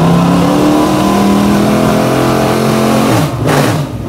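Dirt modified race car's V8 engine running at low speed with a steady pitch, which drops about three seconds in as the car passes close, followed by a loud rushing blast near the end.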